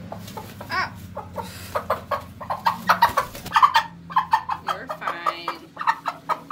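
Hen clucking and squawking in a quick run of short calls while being picked up and held, a sign of a bird upset at being handled.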